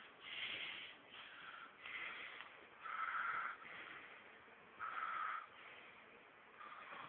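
A man snoring, with noisy snorts repeating about once a second; the loudest come about three and five seconds in.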